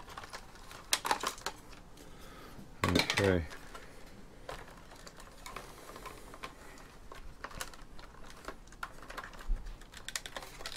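Scattered light clicks and taps of hard plastic as a robotic vacuum cleaner's casing and parts are handled and pried at. The clicks come thicker near the end.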